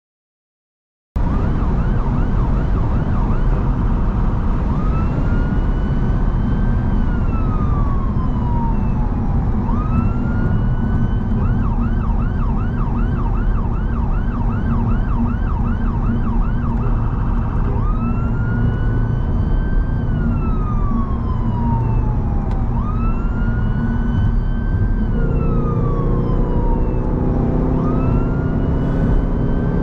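Emergency response car's siren on a 999 run, heard from inside the car. It switches between a slow wail, rising and falling every few seconds, and a rapid yelp of about three cycles a second, over steady engine and road noise. It starts about a second in, and a rising engine note joins near the end.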